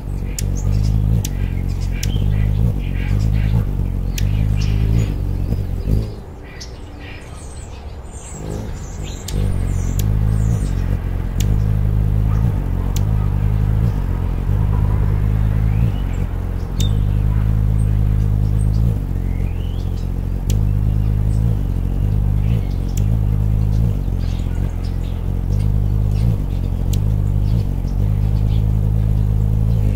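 Anna's hummingbird hovering, its wingbeat a loud low buzzing hum that switches back and forth between two close pitches (about 50 and 60 beats a second). The hum drops away for about three seconds around six seconds in, then returns. A few high chirps sound over it.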